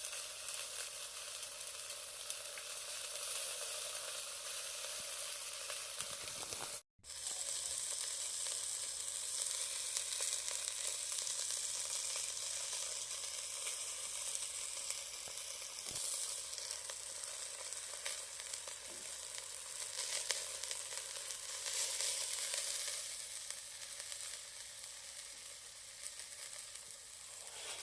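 Chicken thigh and Japanese leek sizzling over a charcoal shichirin grill: a steady, crackling hiss that cuts out for a moment about seven seconds in.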